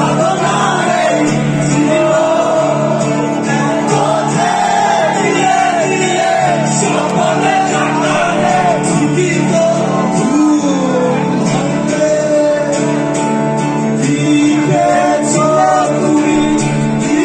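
A live band playing loud through a concert sound system: a man singing over guitars, keyboard and drums, heard from within the audience.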